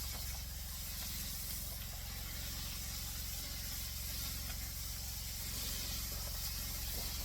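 Pieces of venison backstrap frying, a steady sizzling hiss, over a low steady hum.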